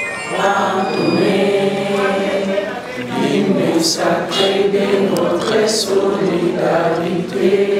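A group of people singing together in unison, sustained sung lines with no spoken words.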